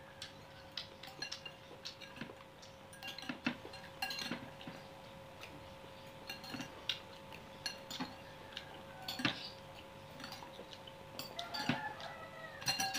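Metal fork and spoon clinking and scraping against a ceramic bowl in irregular taps as noodles are eaten from it.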